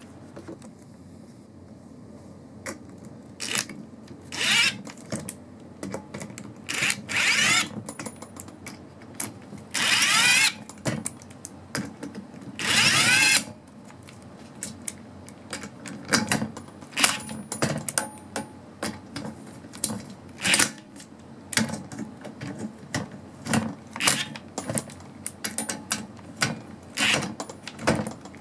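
Ingersoll Rand W5152 20V brushless compact impact wrench hammering on bolts. It runs in several bursts of about a second, with the motor whine rising and falling inside each, then in many quick short blips of the trigger.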